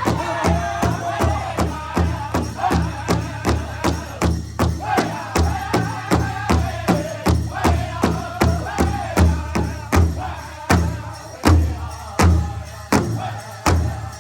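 Music with a steady beat, about two to three sharp hits a second over a deep pulse, and singing or chanting voices over it.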